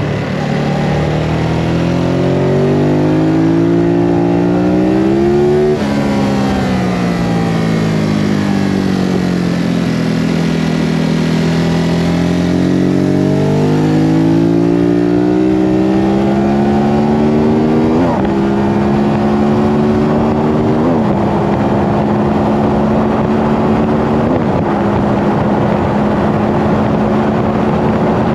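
Ducati Hypermotard 939's L-twin engine at speed on track: it revs up, drops off suddenly and winds down as the bike slows for a corner, then pulls hard again with three quick gear changes near the end, under a steady rush of wind noise.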